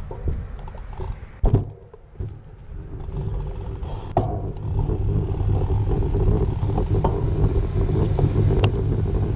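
Wind rumbling on a bike-mounted camera's microphone along with bicycle tyres rolling on a concrete road, growing louder and steadier after about three seconds, with a few sharp knocks from bumps in the pavement.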